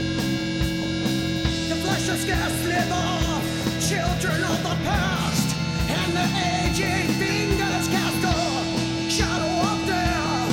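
Live rock band playing with a steady drumbeat and electric guitar. A wavering sung line comes in about a second and a half in.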